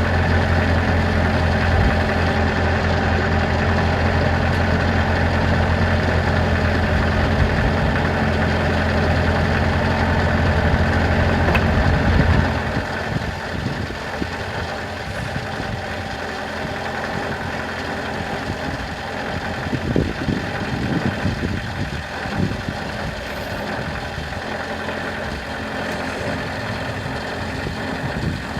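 An engine idling steadily with a strong low hum. About twelve seconds in the deepest part of the hum drops away and the sound falls to a quieter, steady running.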